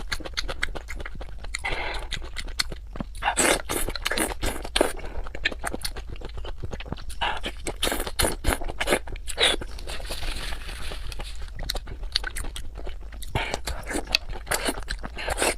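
Close-miked eating: a person chewing and biting with many irregular wet crunches and crackles.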